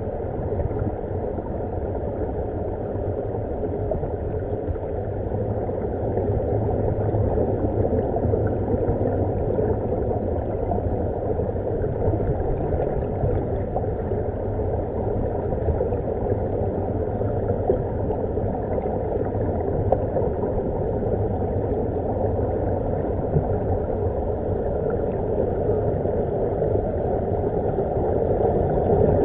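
Steady muffled underwater rumble with bubbling, from air streaming out of surface-fed diving helmets and scuba gear, heard with the microphone under water.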